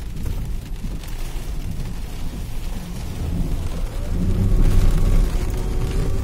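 Low rumble of a car's engine and tyres on a wet road, heard from inside the cabin. It grows louder about four seconds in as the car picks up speed.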